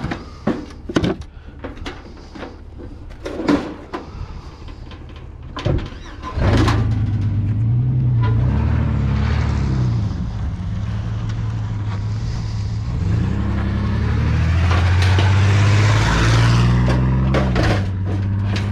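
A few knocks and clatters, then a car engine comes in loudly about six seconds in. The car drives off, its hum rising and falling several times as it speeds up and shifts gear.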